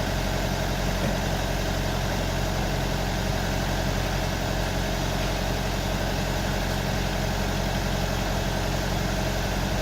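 JCB 4CX backhoe loader's diesel engine idling steadily, an even low running sound with no revving.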